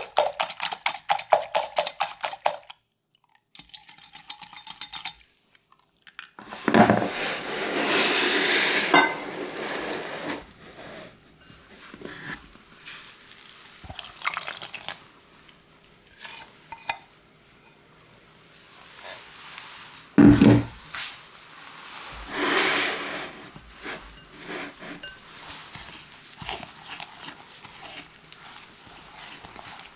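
A wire whisk clicking rapidly against a glass measuring jug, beating egg and milk, stopping about three seconds in. Later comes a longer stretch of pouring and clinking glass, a sharp knock of glass set down, and a silicone spatula scraping and stirring batter in a glass bowl.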